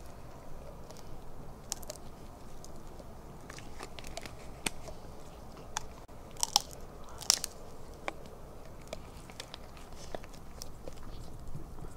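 A golden retriever chewing on a stick: irregular crunches and sharp cracks of wood, the loudest two a little past the middle.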